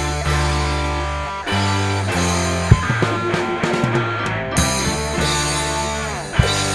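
Instrumental funk-rock jam band music: long held bass notes under pitched guitar and keyboard parts, with sharp drum hits about three seconds in and near the end.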